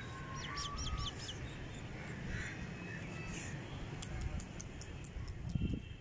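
Birds calling: a quick run of high chirps about half a second in, then a few harsher calls, over a steady low rumble. A string of sharp clicks comes near the end.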